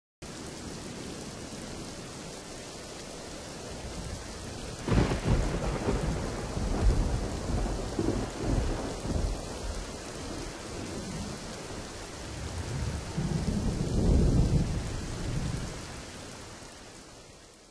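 Thunderstorm: rain falling steadily, with a sharp thunder crack about five seconds in and rolling rumbles of thunder after it. The sound fades out near the end.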